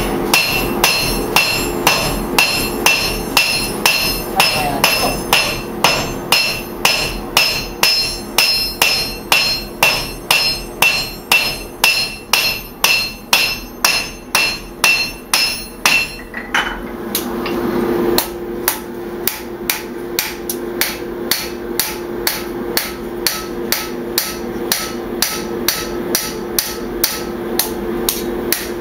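Hand-forging: hammer blows on hot steel on an anvil, a steady rhythm of about two ringing strikes a second. About sixteen seconds in, the blows turn lighter and a steady hum sits underneath.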